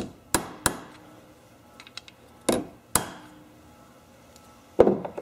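Hammer tapping a driver tool to drive a new inlet needle seat into a Kohler Command carburetor body clamped in a vise. About six sharp metallic taps come in three groups: three quick ones at the start, two about halfway and one near the end, the loudest.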